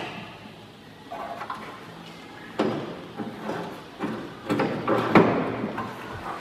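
Rusted sheet-metal door hinge on an old truck cab being wrenched and worked by hand, giving irregular bursts of metal scraping and clanking, loudest about five seconds in; the hinge is seized with rust and will not come free.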